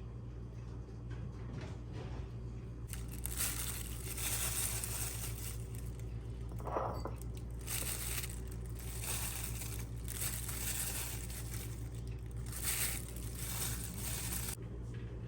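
Repeated rustling and crinkling, as of plastic or paper being handled, over a steady low hum.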